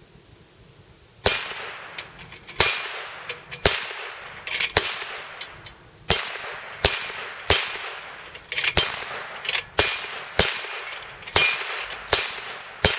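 ISSC MK22 .22 LR semi-automatic rifle firing single shots at a steady pace, about one a second, starting about a second in. Each shot is followed by the ringing clang of a small steel gong plate being hit.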